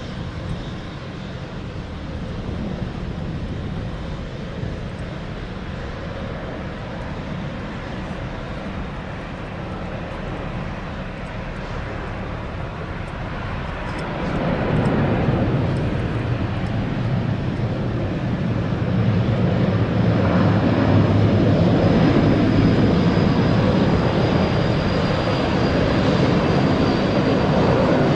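Dash 8 turboprop airliner landing: a steady engine and propeller drone on approach grows clearly louder about halfway through, as it touches down and rolls out on the runway. A thin high whine joins the engine noise about two-thirds of the way in.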